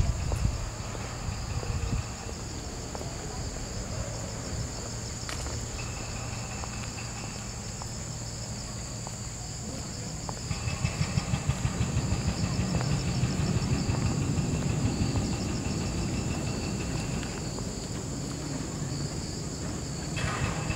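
Insects buzzing in the trees: a steady high chorus with a lower pulsing trill that comes and goes. Under it a low rumble runs on the microphone, heavier from about ten seconds in.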